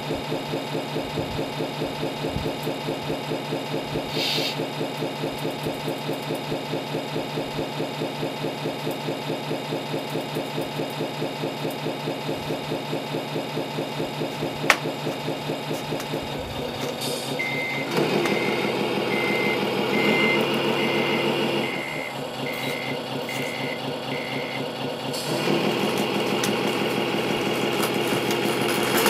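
Sound unit of a Tamiya Scania R620 radio-controlled truck playing a diesel truck engine idling with an even pulse. About halfway through the engine picks up and a reversing beeper sounds about nine times, then the engine sound rises again near the end.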